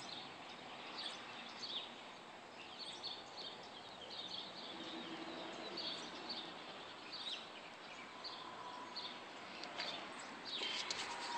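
Faint outdoor ambience with small birds chirping on and off, and a slightly louder burst of noise near the end.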